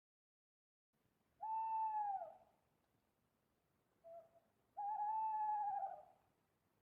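A bird calling in two long, hooting whistled notes. The first falls in pitch at its end, a brief short note follows, and the second is held longer with a slight waver.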